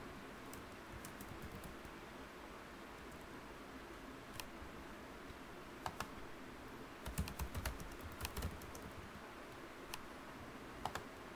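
Typing on a computer keyboard: a few scattered key clicks, then a quick run of keystrokes about seven seconds in, over a faint steady hiss.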